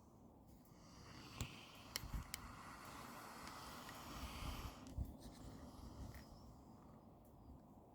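Faint snoring of a sleeping person: one long, noisy, breathy snore swells up about a second in and dies away around five seconds, with a few small clicks along the way.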